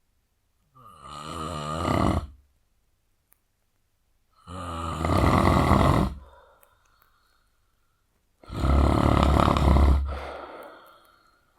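A man snoring heavily: three loud snores, each about two seconds long, spaced about four seconds apart with quiet breaths between. The first snore begins with a rising tone.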